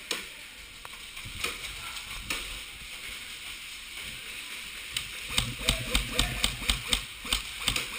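Airsoft gun firing a quick string of shots, about a dozen sharp snaps in two and a half seconds in the second half, after a few scattered clicks earlier.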